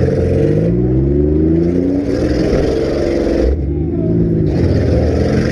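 Compact demolition derby cars' engines revving hard, several at once, their pitch climbing and falling. A hiss in the upper range comes and goes every second or so.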